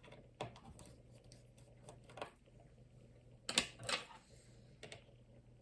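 Sparse small clicks and taps of repair tools against an iPhone's metal internal shield as it is pried loose, with the sharpest pair of clicks about three and a half seconds in.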